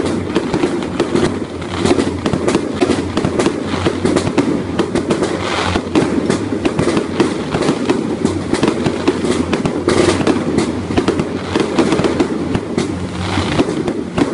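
Fireworks display going off: a dense, unbroken crackle of many sharp pops and bangs from spark fountains and aerial effects.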